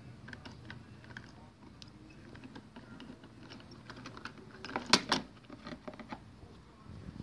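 Light plastic clicks and rattles from a toy garbage truck's side-loader arm and a small plastic trash bin being worked by hand, with two sharp louder clacks about five seconds in.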